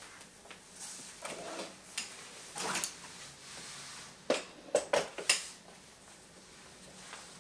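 Sharp plastic-and-metal clicks and light knocks as a stroller with its infant car seat and a bassinet are handled, with a quick run of four or five louder clicks about four to five and a half seconds in.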